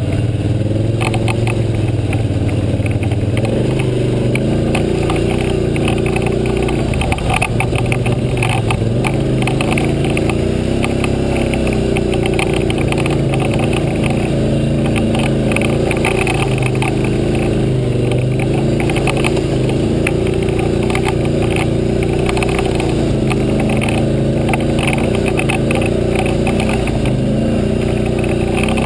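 ATV engine running as the quad is ridden along a rough, muddy trail, its pitch rising and falling with the throttle, with constant rattling and knocking from the machine over the bumps.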